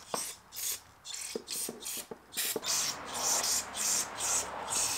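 Aerosol carburetor cleaner sprayed through its straw into the jet and float-bowl holes of a Tecumseh auger carburetor to flush out gunk: a run of short hisses, longer from about halfway in, with a few light clicks.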